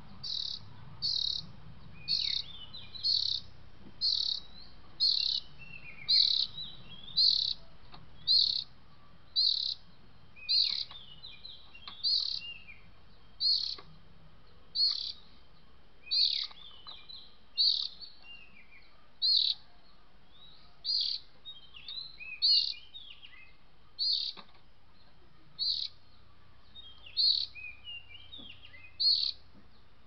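A bird-call lure recording played through a Bluetooth speaker to draw oriental magpie-robins: one short, high chirp repeated very regularly about once a second, with other varied chirping notes in between.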